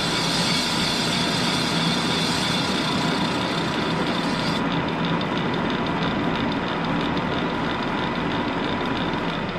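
Huron milling machine running steadily, its spindle turning a grooving head in a cylinder bore of a 6.0 L Chevy LS engine block to cut an O-ring groove. About halfway through the highest hiss drops away while the machine keeps running.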